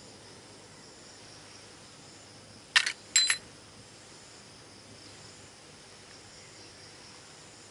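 Two quick sharp clicks from small gear handled in the hands, a little under three seconds in, the second with a brief ring. Underneath, a steady high insect drone, crickets or cicadas.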